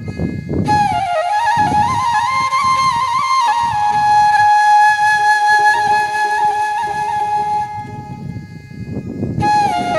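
Background music: a flute playing a melody in phrases, the first settling into a long held note, then a short pause before a new phrase starts near the end.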